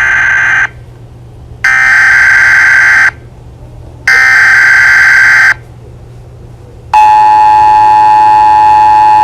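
Emergency broadcast-style alert tones: three loud buzzing blasts about 1.5 s each with short gaps, then a longer, lower steady two-tone alarm starting about seven seconds in, announcing a warning message.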